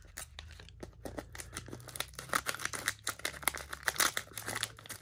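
Plastic wrapper of a Mosaic NBA cello trading-card pack crinkling as it is handled: a dense run of crackles that gets busier about two seconds in.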